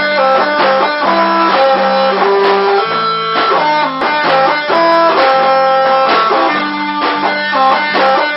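Live band playing an instrumental passage. Electric guitar picks a stepping melodic riff over a steady low note, and the phrase repeats about every four seconds.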